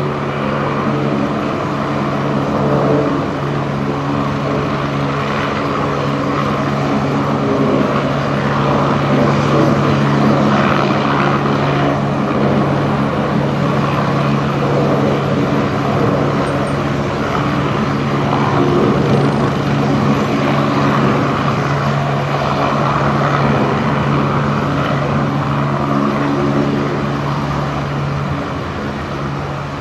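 Agusta A109E Power twin-turbine helicopter running on the ground with its rotors turning: a steady low hum under a loud turbine and rotor whoosh, easing off slightly near the end.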